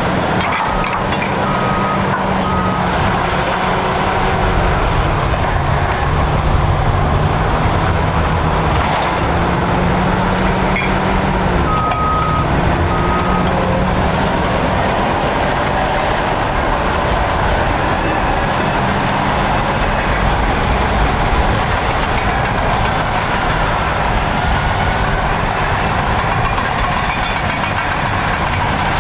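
Caterpillar bulldozers' diesel engines running steadily under load, their pitch rising and falling. A reversing alarm beeps a few times about two seconds in and again about twelve seconds in.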